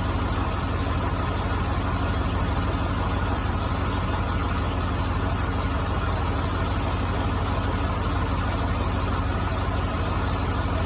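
C5 Corvette's 5.7-litre V8 idling steadily. It is misfiring on more than one cylinder because spark plug wires are arcing to the header tubes, which gives the poor idle.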